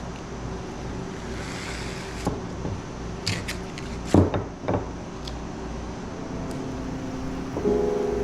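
A steady low machine hum in a woodworking shop, with a handful of sharp knocks and clunks from pieces being handled, the loudest about four seconds in. Piano music starts near the end.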